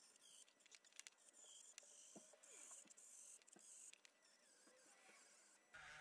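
Faint scratching and irregular ticking of a small brass wire brush spinning in a cordless mini rotary tool (KENOH Router Master 2) as it scrubs rust and carbon off a Coleman 508A stove burner part. Just before the end the sound turns to a steadier, fuller hiss.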